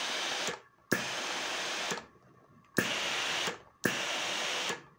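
Vestel steam-generator iron shooting out steam in short hissing bursts: one burst ends about half a second in, then three more follow, each about a second long with brief gaps. The iron is giving steam again after having stopped, a fault cleared with a bicycle pump.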